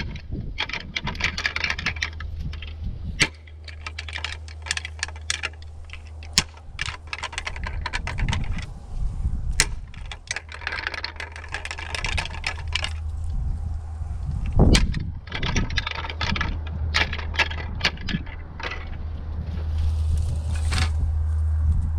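Wind buffeting the microphone as a steady low rumble, growing stronger near the end, with many scattered sharp clicks and bursts of rustling.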